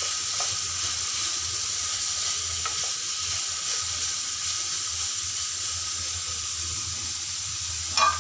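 Diced carrots and sliced onion sizzling in oil in a metal pan as they are stirred with a wooden spatula: a steady frying hiss with a few faint ticks.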